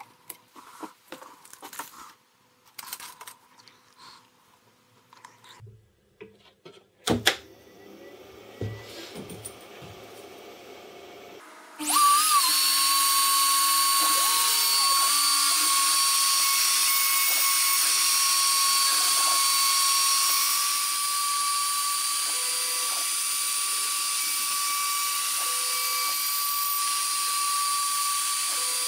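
Scattered clicks for the first few seconds and a thump about seven seconds in. About twelve seconds in, the CNC router's spindle, fitted with an up-spiral bit, starts suddenly and runs loud and steady with a high whine. It eases slightly about twenty seconds in.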